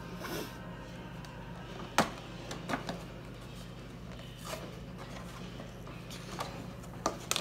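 Clear plastic blister packaging of a toy being handled, giving a few light clicks and taps, the sharpest about two seconds in, over a steady low hum.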